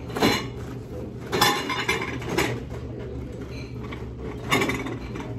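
Dishes and cutlery clinking on a table in four separate short clatters, over a steady low background hum.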